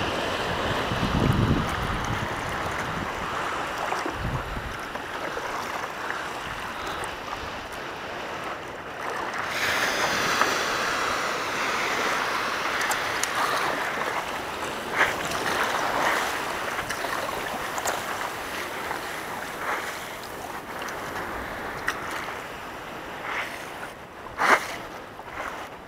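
Water rushing and lapping under a board gliding over calm sea, with wind on the microphone. A few short splashes break through, the sharpest near the end.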